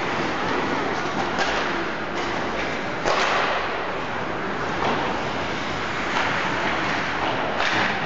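Ice hockey play: a steady wash of skates and rink noise with several sharp clacks of sticks and puck, the loudest about three seconds in.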